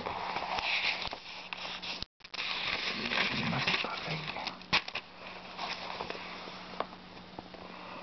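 Paper pages of a book being turned by hand: rustling in several bursts with sharp ticks from the page edges, over a low steady hum. The sound cuts out for a moment about two seconds in.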